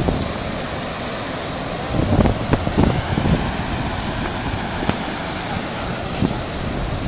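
Muddy floodwater rushing past in a steady wash of noise, with wind buffeting the microphone in gusts between about two and three and a half seconds in.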